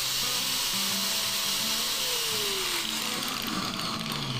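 Doliz BA730 angle grinder running free with no disc and no load, a steady high whine; about three seconds in it is switched off and winds down, the whine falling away. Background music plays underneath.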